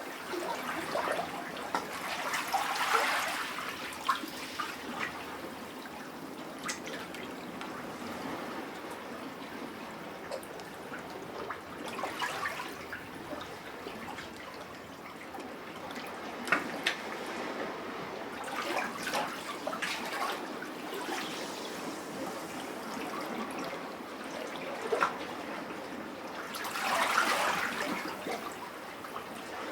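Sea water lapping and sloshing in a rock cavity, swelling in a surge every several seconds, the strongest near the end. Between the surges come gurgles and sharp drips and splashes.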